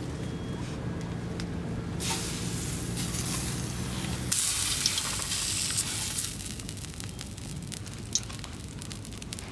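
Fish pieces frying in a hot pan over a wood fire. The sizzle starts faint, is loudest for about two seconds near the middle, then dies down.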